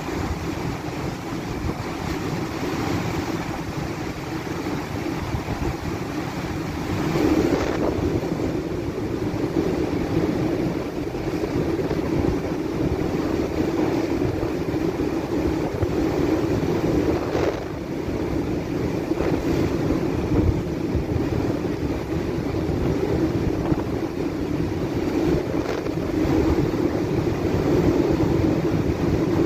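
Strong wind and heavy seas breaking against a bulk carrier's bow, with wind buffeting the microphone. The noise is steady and swells now and then as gusts and waves come through.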